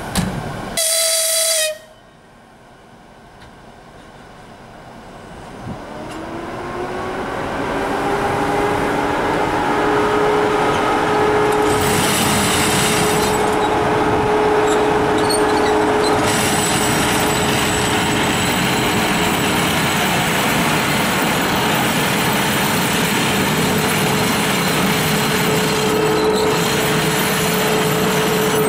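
EP2K electric locomotive gives a short horn blast about a second in. After a lull, its running noise rises in a whine over a few seconds and settles into a loud steady hum with a clear tone as it moves up to the passenger train.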